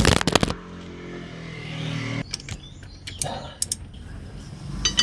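Sharp metal clicks and clanks as a long steel bar levers the power steering pump outward on its bracket to tighten the belt. A clump of clicks comes at the start and more come a little after three seconds in. A low steady hum stops abruptly about two seconds in.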